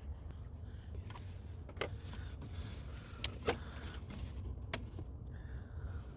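Hand work on a coolant hose and its fittings in a car's engine bay: a few sharp clicks and knocks, the loudest about halfway through, over a steady low rumble.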